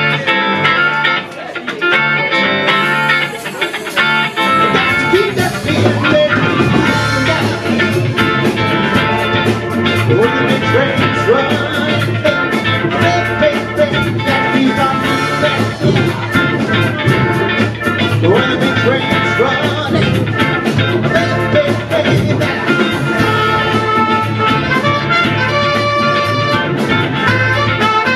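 Live band playing, with drum kit and electric guitars; the drums and bass come in about four seconds in after a lighter opening, filling out the sound.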